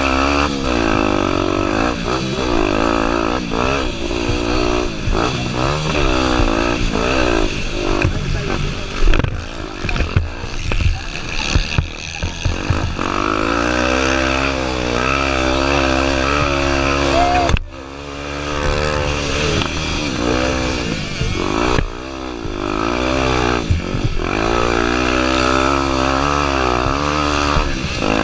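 Honda Tornado 250 four-stroke single-cylinder engine being ridden hard, its pitch rising and falling repeatedly as the throttle is opened and closed. Rattling knocks from the bike over rough ground come about a third of the way in, and the engine note cuts out briefly about two-thirds of the way through.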